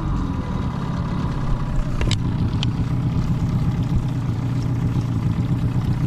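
Yamaha 9.9/15 two-stroke outboard motor idling steadily just after a cold morning start, left running to warm up. Two light clicks come about two seconds in.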